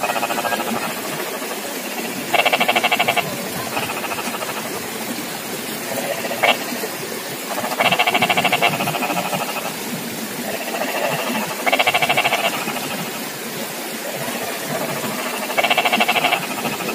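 Frogs calling: loud pulsed trills under a second long come about every four seconds, with fainter calls between them over a steady background chorus. A single sharp click about halfway through.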